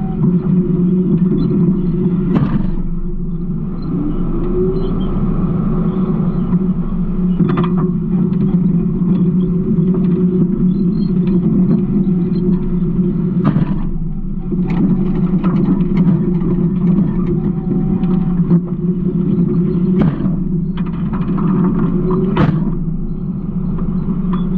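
Garbage truck running with a steady, loud rumble, with about half a dozen sharp knocks and rattles spaced a few seconds apart.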